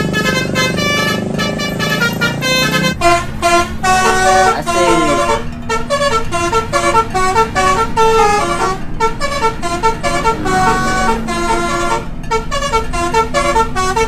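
Telolet basuri bus horn playing a quick tune of short, stepped notes over a steady low drone.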